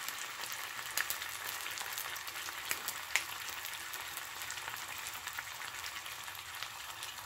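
Two slices of ham frying in oil in a nonstick pan: a steady sizzle with scattered pops and crackles.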